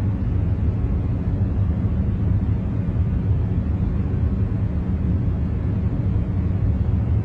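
Steady, deep rumbling noise with no rhythm or events, heavy in the low end with a faint fixed hum under it: a continuous background-noise track made for concentration.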